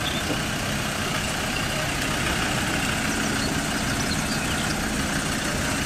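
Engine of a trackless tourist road train running steadily as the train rolls slowly along on pavement.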